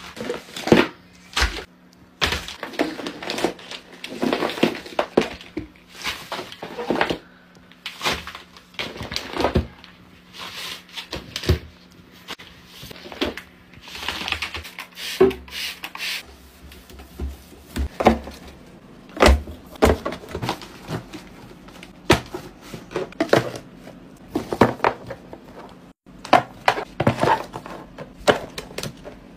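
Foil sheet-mask sachets rustling and crinkling as they are handled, with repeated sharp taps and knocks as stacks of packets are squared up and set into a drawer.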